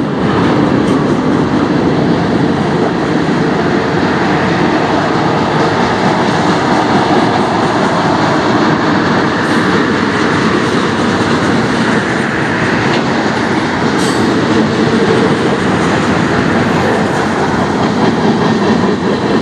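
Manifest freight train's cars rolling past steadily: wheels running on the rails under tank cars, covered hoppers and gondolas.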